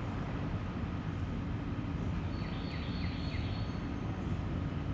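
Steady low rumbling background noise, with a few faint short high chirps or squeaks about halfway through.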